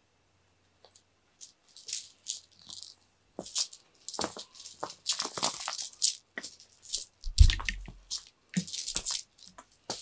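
A cat teaser toy being shaken and flicked across the floor in play: quick rustling, rattling strokes in irregular bursts, with one dull thump about seven seconds in.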